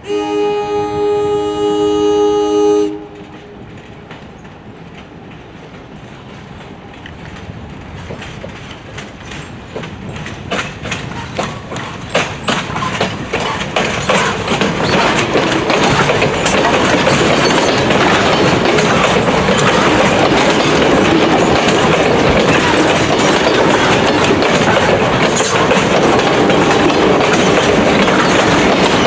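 A train air horn sounds one chord of about three seconds, then cuts off. After it, the train's wheels rumble and click over the rail joints, growing louder over about twelve seconds until the running is steady.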